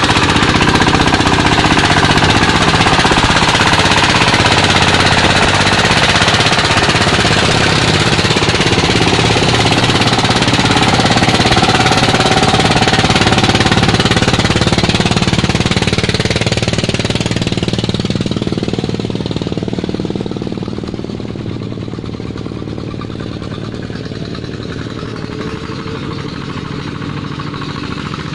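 Single-cylinder diesel engine of a công nông farm cart running with a fast, hard pounding beat as it hauls a load of rice sacks; it grows fainter about two-thirds of the way through as the cart moves away.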